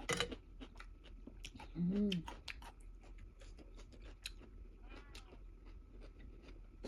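A person chewing food close to the microphone, with many small wet mouth clicks. About two seconds in there is a short hummed "mm" that rises and falls in pitch.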